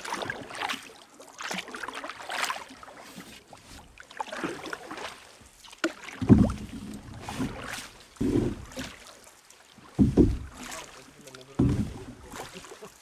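Canoe being paddled: swishing, splashing paddle strokes in the water, with four stronger strokes about two seconds apart in the second half.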